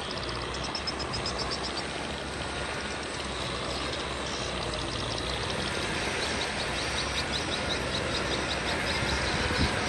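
Kubota M6040 tractor's diesel engine running at a distance, a steady noise that grows slightly louder, with runs of quick, rhythmic high chirping about a second in and again later.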